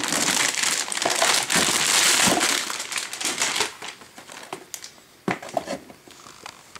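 Anti-static plastic bag crinkling loudly as a motherboard is pulled out of it, for about three and a half seconds; after that, only a few light clicks of handling.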